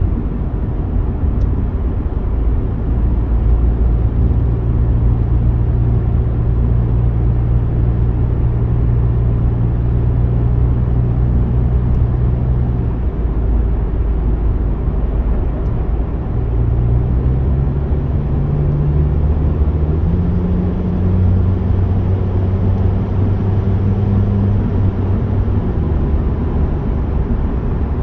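Car road noise heard from inside the cabin while driving through a highway tunnel: a steady low rumble of tyres and engine. Under it runs a low drone that climbs in pitch a little past halfway and then holds.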